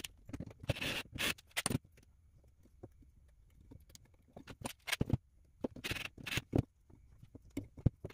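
Handling noise from working on a small carbon-frame drone and tools on a wooden tabletop: a rapid run of clicks and taps, with two short scraping rushes, about a second in and about six seconds in.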